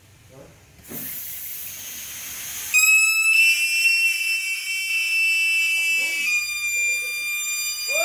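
Compressed air hissing out, then about three seconds in a loud, steady high whistle joins it, its pitch shifting slightly near the end.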